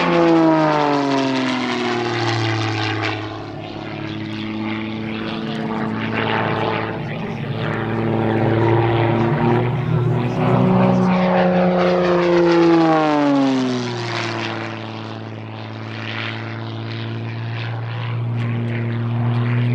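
Zivko Edge 540 V3 aerobatic plane's six-cylinder Lycoming engine and propeller running loud through manoeuvres. The pitch drops in the first couple of seconds, climbs again about ten seconds in, and falls away between about twelve and fourteen seconds before levelling off.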